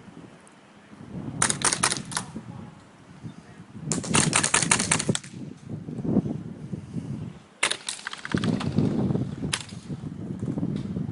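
Airsoft guns firing several bursts of rapid shots, the longest about a second long, with single shots in between.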